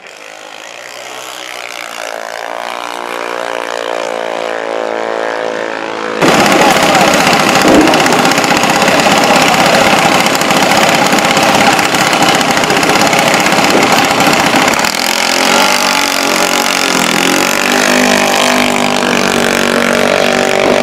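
Engine of a drag-strip vehicle, growing steadily louder over the first six seconds, then suddenly much louder, close-up engine noise that carries on.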